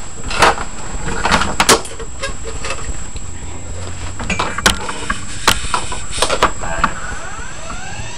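Clicks and knocks of plugging in and handling, then near the end the converted hard drive's spindle motor, carrying a grinding disc in place of the platter, starts spinning up with a rising whine.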